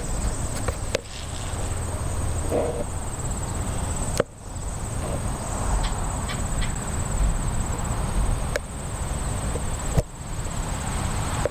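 A steady, high-pitched chorus of insects, over a heavy low rumble and a few sharp clicks.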